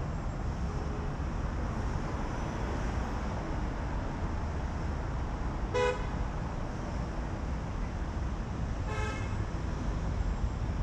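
Steady city road traffic noise, with two short car horn toots: a louder one about six seconds in and a fainter one about three seconds later.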